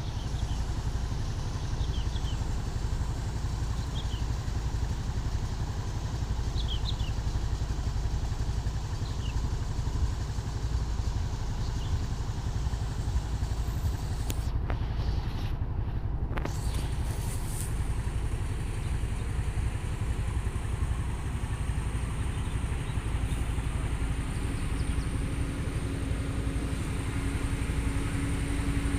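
Steady low rumble of vehicle engines in a slow-moving traffic jam, with a low engine tone growing stronger in the last several seconds.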